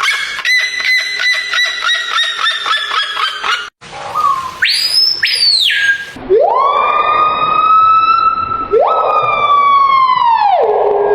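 Strange bird calls, one after another: a fast run of repeated sharp notes, about four a second, then, after an abrupt change, a high call that rises, holds and drops, followed by two long siren-like wails that swoop up, hold and slide down.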